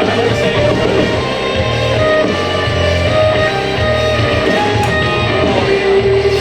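Background rock music with guitars and a steady beat.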